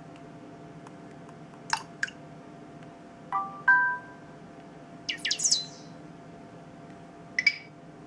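Samsung Galaxy Mini 2 (GT-S6500) built-in notification tones previewed one after another through the phone's small loudspeaker: four short tones with gaps between them. A pair of quick pings comes first, then a two-note chime, a rapid run of high chirps a little past halfway, and a short ping near the end.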